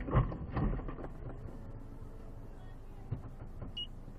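Car interior sound recorded by a dashcam: a low, steady engine hum, with a couple of sharp knocks in the first second.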